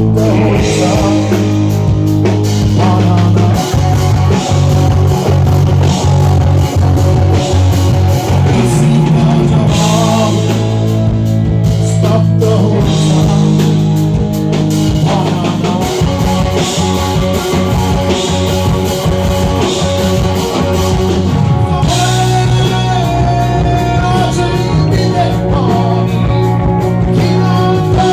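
A live band playing rock music with electric guitar, bass and drum kit.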